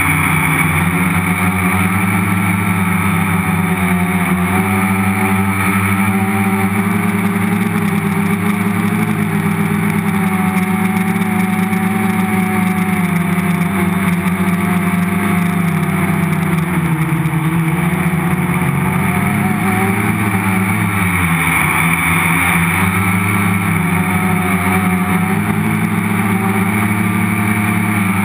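Multicopter's electric motors and propellers buzzing steadily in flight, heard from the camera mounted on the frame, the pitch dipping and rising a few times as the flight controller changes motor speed.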